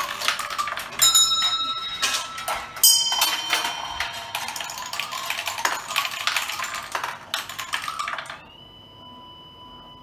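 Marble-drop doorbell running: marbles clatter and rattle through metal pins and chutes. A bell is struck about a second in and again about three seconds in, each ringing briefly. The clatter stops at about eight seconds, leaving a faint steady high tone.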